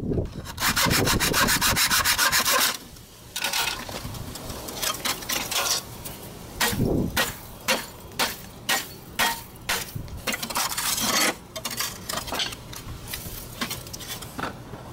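Hacksaw cutting through the sheet-steel casing of a scooter muffler with fast, even strokes, stopping after about three seconds. Irregular scrapes and rattles of torn metal follow as the cut casing is worked apart.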